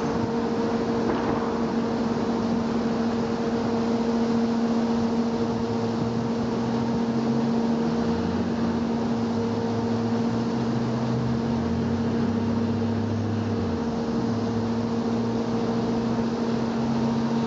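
Steady mechanical hum: a strong constant tone over an even background noise, with a lower drone that steps up and down in pitch through the middle.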